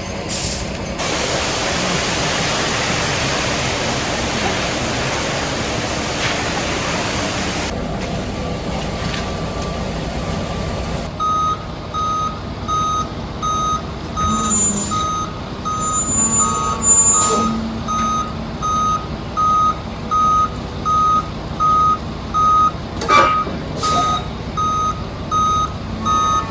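A loud rushing hiss for the first several seconds cuts off abruptly. Then a heavy vehicle's reversing alarm beeps steadily about once a second over its running engine as it backs up.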